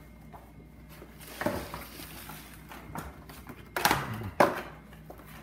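Handling noise from unpacking trading-card boxes: clear plastic trays and card packaging clicking and rustling on a countertop, with a few sharper clacks.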